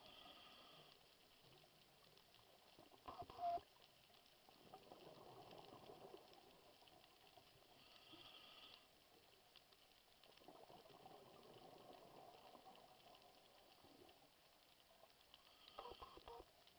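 Faint underwater water noise picked up by a submerged camera, with a brief sharp knock about three seconds in and a few small knocks near the end.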